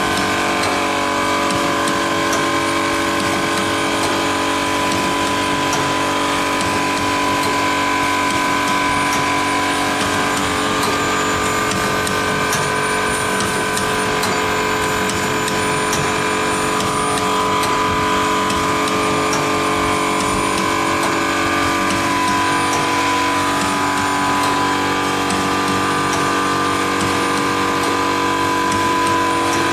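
Triangle tea-bag packing machine running: a steady mechanical hum with several constant whining tones and faint light ticking from its mechanism.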